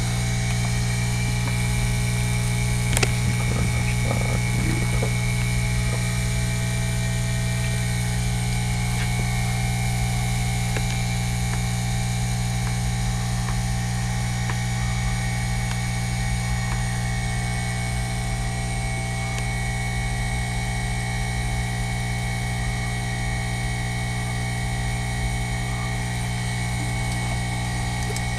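A steady electrical hum with a fainter high-pitched whine above it, unchanging throughout, and a faint click about three seconds in.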